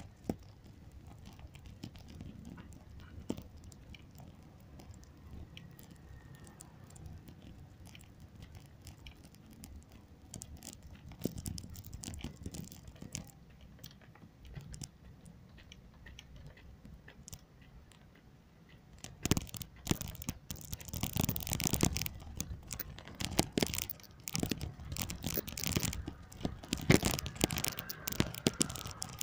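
Crackling, rubbing noise right on a phone's microphone, with a low rumble underneath; it turns much louder and denser about two-thirds of the way through.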